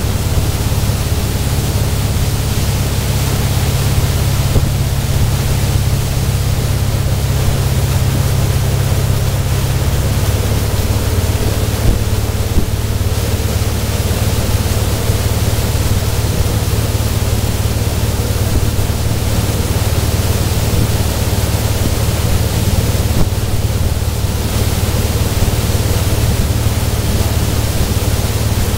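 Motorboat running at towing speed: a steady engine drone under heavy wind rumble on the microphone, with the rush of the churned wake.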